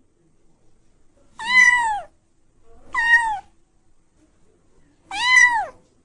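Cat meowing: three separate meows, each rising then falling in pitch.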